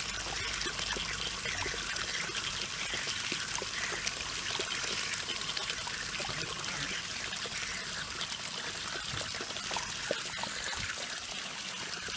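Garden hose spray nozzle running a steady jet of water into a shallow plastic paddling pool, the water splashing and pattering on the pool's surface, with a few faint clicks.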